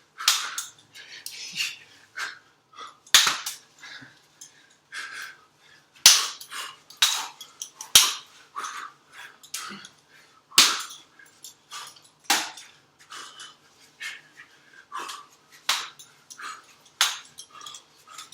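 Rapid, irregular knocks of martial-arts training strikes hitting a hanging wooden jump-rope handle, about two a second. Hard breathing can be heard between the hits.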